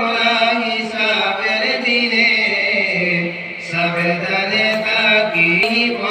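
A man singing a Bengali Islamic gazal into a microphone, drawn-out melodic lines with wavering ornaments and a short breath pause a little past halfway.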